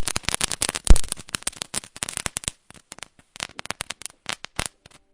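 Crispy fried Kakching bora being bitten and chewed up close: dense crackling crunches. A loud bite comes right at the start and another about a second in, then the crunching thins out toward the end.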